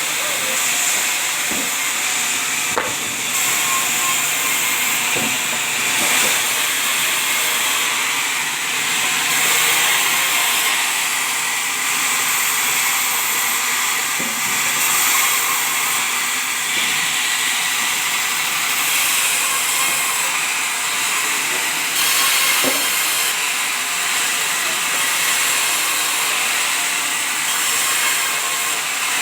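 Sawmill machinery processing sengon logs: a loud, steady hiss, mostly high-pitched, with a few faint knocks.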